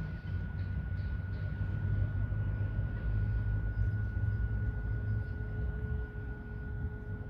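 Radio-controlled model boat's motor giving a thin, steady high whine while the boat cruises, over a steady low outdoor rumble that is the loudest sound.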